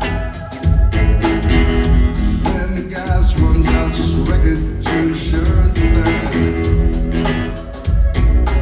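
Live band playing a song, with loud bass and regular drum hits under guitar and keyboard parts.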